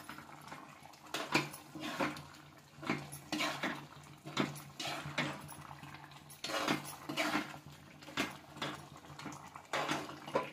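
Metal spoon stirring chickpea curry in a non-stick pan, scraping and clinking against the pan in irregular strokes.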